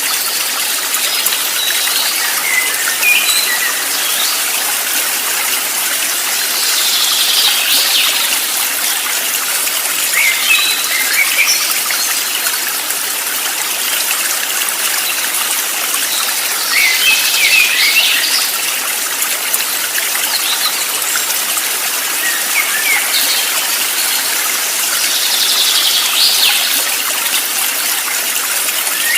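Flowing stream water running steadily, with short bursts of bird chirping every few seconds.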